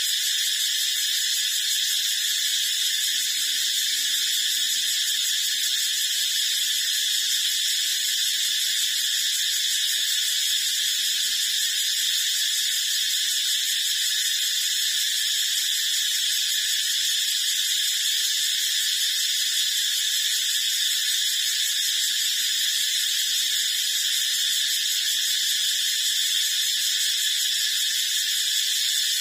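A steady, high-pitched hiss that holds at one level and never changes.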